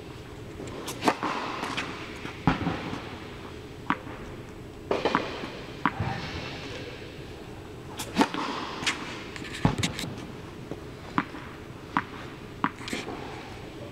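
Tennis ball bounced on the court before serves and struck with a racket: a string of sharp pops and thuds a second or more apart, echoing in an indoor tennis hall.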